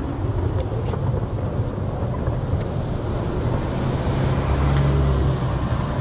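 City street ambience: a steady low rumble of traffic, swelling about four to five seconds in as a vehicle passes, with a few faint clicks.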